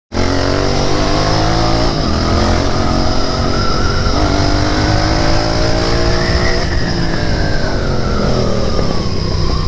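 Royal Enfield Interceptor 650's 648 cc parallel-twin engine running on the road. Its note dips once early on, climbs for a couple of seconds around the middle as the bike accelerates, then falls away as it eases off.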